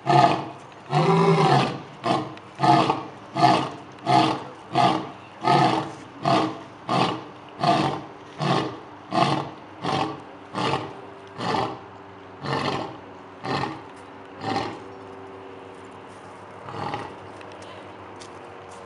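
Male lion roaring: long, full roars at first, then a long run of short grunting roars, a bit more than one a second, that grow steadily weaker and die out about three-quarters of the way through, with one last faint grunt near the end.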